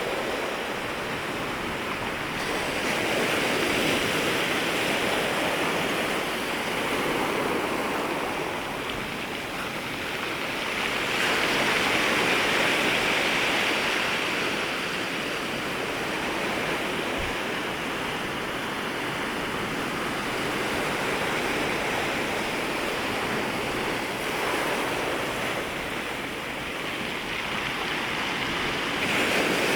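Ocean waves breaking and washing in at the water's edge: a continuous rush of surf that swells louder about three seconds in, again around eleven seconds, and near the end.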